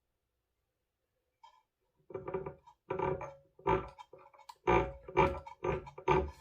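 Key cutting machine's cutter wheel rubbing on the key, a run of about eight short ringing scrapes starting about two seconds in: the cutter is still touching just a little, so the stylus is not yet calibrated to the blade.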